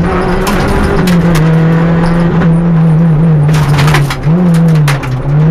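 Renault Clio Williams rally car's 2.0-litre four-cylinder engine running hard at high revs under load, heard from inside the cabin. The pitch holds steady, dips briefly about a second in, then rises and falls quickly past four seconds, and a few sharp knocks come through over it.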